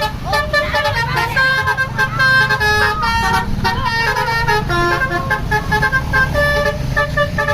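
A bus telolet horn: a multi-tone horn playing a rapid tune of short held notes at changing pitches, over the bus's engine running.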